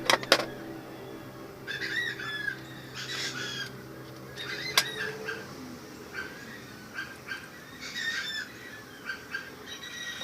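A bird calling in short chirps with overtones, repeated at uneven intervals, with a few sharp clicks near the start and about five seconds in.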